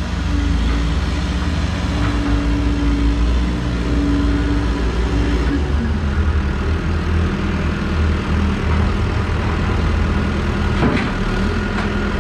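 Caterpillar backhoe loader's diesel engine running close by, its pitch dropping to a lower, steady note about six seconds in as it settles toward idle. A single knock near the end.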